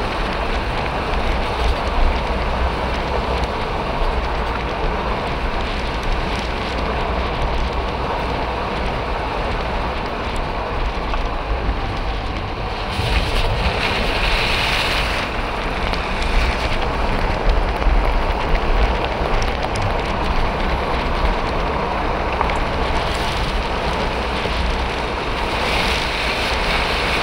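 Road and wind noise of a moving vehicle: a steady low rumble with a hiss of tyres on the road and wind buffeting the microphone. The hiss turns harsher for a couple of seconds about halfway through and again near the end.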